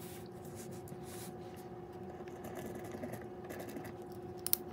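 Faint scratching of a glue pen's tip rubbed over paper, over a low steady hum, with a sharp click near the end.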